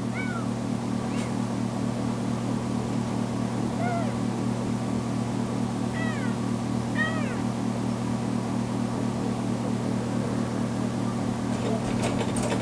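Kitten meowing repeatedly in short calls that rise and fall in pitch, a few seconds apart, over a steady low hum. It is the crying of a freshly spayed foster kitten left alone in her crate, calling for her absent owner.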